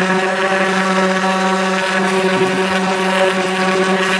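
Electric random orbital sander running steadily while sanding a wooden picture frame, a constant even hum that does not change in pitch.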